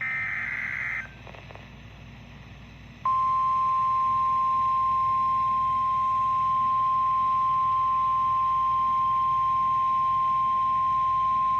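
Emergency Alert System weather alert from NOAA Weather Radio. A burst of buzzing SAME header data tones ends about a second in. After about two seconds of faint radio hiss, the single-pitch warning alarm tone comes on and holds steady for about nine seconds, signalling a warning-level alert.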